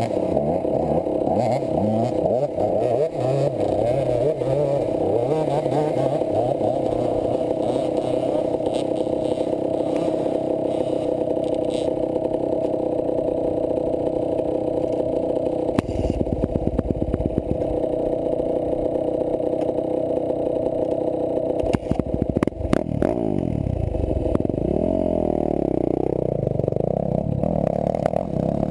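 Enduro motorcycle engine running at low revs while the bike is ridden slowly over rough ground, with knocks and rattles from the bike. About 24 seconds in, the revs rise and fall several times.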